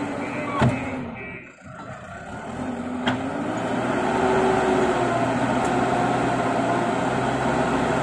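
JCB backhoe loader's diesel engine working under load as its front bucket pushes soil. There is a sharp clank early on, the engine drops away briefly, and it then runs louder and steadily through the second half.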